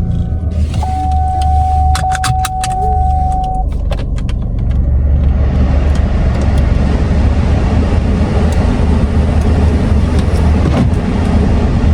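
Car engine running with a steady electronic tone and a handful of sharp clicks over the first few seconds, then road and wind noise rising as the car drives off and holding steady.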